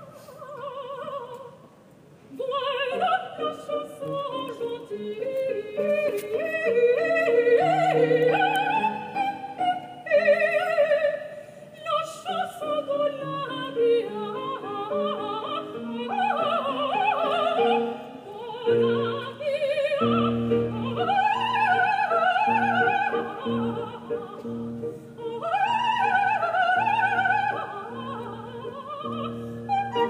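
Operatic soprano singing a coloratura aria with wide vibrato, accompanied by a grand piano; from about twenty seconds in, the piano adds deep repeated bass chords beneath the voice.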